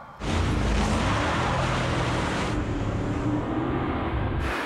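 An Audi A1 and an Audi SQ7 launching from a standing start on snow. The engines rev hard, starting suddenly about a quarter second in and holding steady, with the hiss of tyres spinning in the snow.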